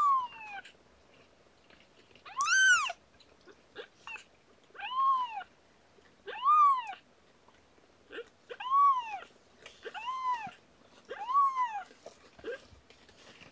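Very young kitten, under two weeks old, mewing repeatedly: about seven high, arching cries a second or two apart, the loudest about two and a half seconds in.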